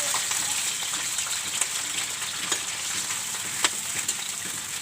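Garlic and other ingredients frying in hot oil in a pan: a steady sizzle with a few sharp crackles.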